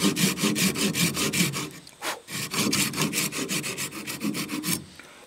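Quick back-and-forth strokes of a small hand saw cutting a notch into a sugar maple axe handle, about five strokes a second, in two runs with a short pause about two seconds in.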